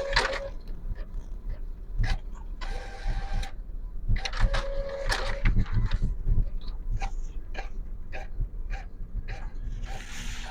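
Office printer running: a string of irregular clicks with two short whirring passes.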